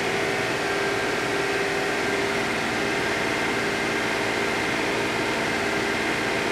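Audi A6 2.8-litre V6 engine running steadily, held at a raised speed of about 2000 rpm.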